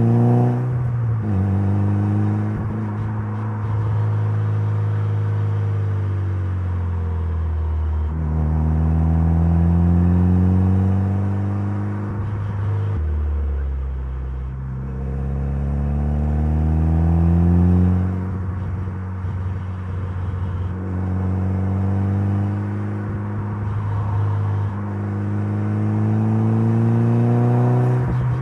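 Mitsubishi Lancer Evolution's turbocharged 4G63 inline-four engine under way, its revs climbing several times, each climb followed by a drop as the car accelerates and backs off.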